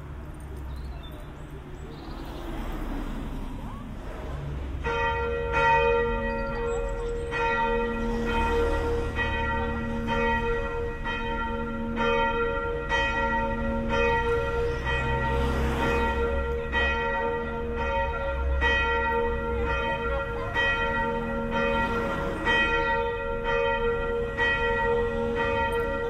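Church tower bell ringing, starting about five seconds in with strikes at an even pace of about one a second, each ringing on into the next.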